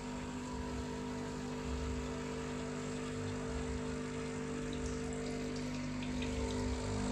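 Sage Barista Pro espresso machine's vibratory pump humming steadily while it pushes water through the portafilter, with espresso running into the cup.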